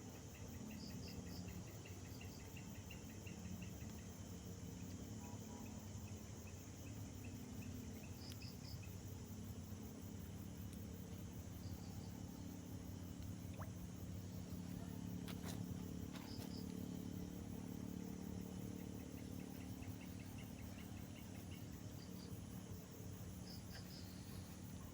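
Insects chirping: short high chirps in groups of two or three every few seconds, with a fast run of fine ticks in the first few seconds, over a faint steady low hum.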